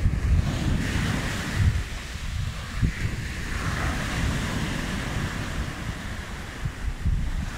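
Small waves breaking and washing up a sand beach, with wind buffeting the microphone.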